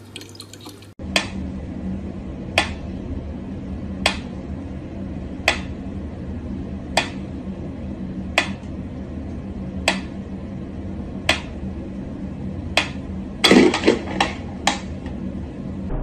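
Sharp taps repeating evenly about every second and a half over a steady low hum, with a brief cluster of louder knocks near the end.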